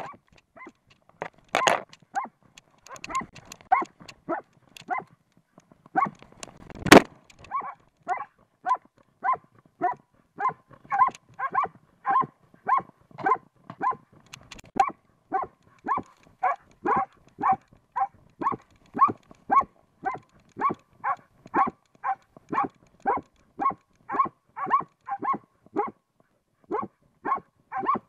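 Norwegian elkhound barking at a badger in a steady rhythm of short, loud barks, about two a second, with a brief pause near the end. Before the barking starts, a few scuffling knocks are heard, and one loud knock about seven seconds in.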